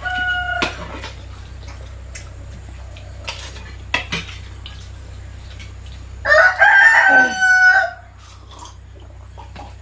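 A rooster crowing: one crow tails off just after the start, and a second, louder crow of about a second and a half comes about six seconds in. A few light clicks fall between the two crows.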